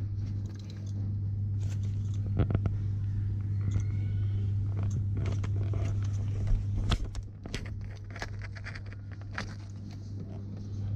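Plastic blister packaging of a bicycle headlight crinkling and clicking as it is handled, with irregular scrapes and taps, loudest about two and a half seconds in and again around six to seven seconds in. Under it runs a steady low hum.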